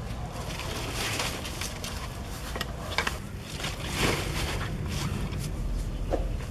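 Rustling and scraping as a fan-palm leaf and a woven basket are carried and handled, with a few short scrapes about a second, three and four seconds in, over a low steady rumble.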